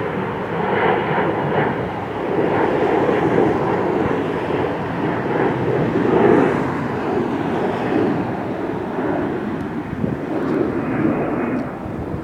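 Airliner engine noise: a steady, fairly loud rumble and roar that swells and eases slowly.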